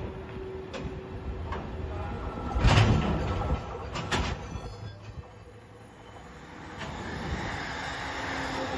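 Loaded ballast hopper wagons of a freight train rolling slowly past, their wheels giving a series of irregular clunks and knocks over rail joints above a low rumble. Near the end, the steady rush of an electric commuter train passing close by takes over.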